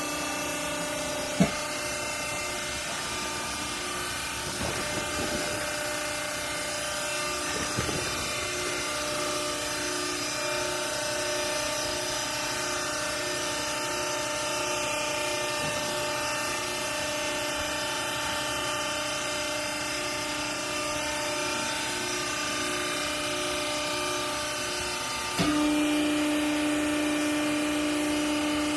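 A hydraulic baler's electric motor and pump unit running with a steady, multi-tone hum, with a sharp click about a second and a half in. Near the end the sound jumps louder into a stronger, steadier hum.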